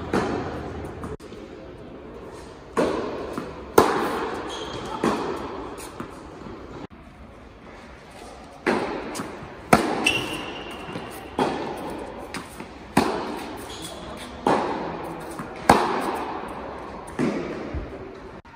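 Tennis rally: rackets strike the ball back and forth, each sharp pop echoing in a large indoor hall, about one stroke a second, with a pause of about three seconds partway through.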